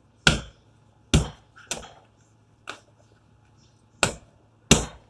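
A ball of dough slapped down hard onto a kitchen countertop while being kneaded: six sharp slaps at uneven intervals, three of them loud.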